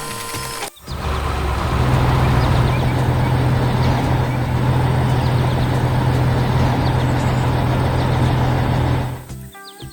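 A heavy vehicle's engine running steadily with a deep, even hum. It starts about a second in, after a short harsh sound, and drops away near the end.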